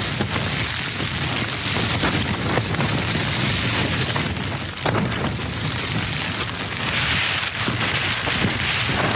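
Heavy rain pelting the Dyneema (DCF) fly of an ultralight backpacking tent, heard from inside: a dense, steady patter with scattered sharper hits and a low rumble underneath.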